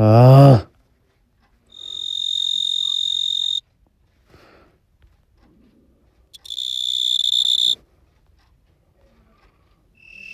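Tree cricket song played back as a reference call: two steady, high-pitched trills, the first about two seconds long and the second about a second and a half, with a pause between. A brief bit of voice comes at the very start.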